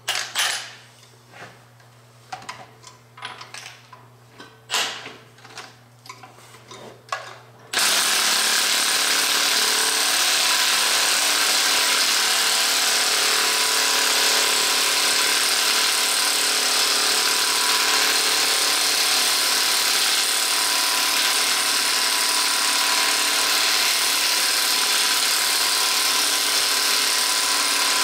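Scattered sharp metallic clicks and knocks of tools and parts being handled, then about eight seconds in a hand-held power tool starts abruptly and runs steadily at an even speed.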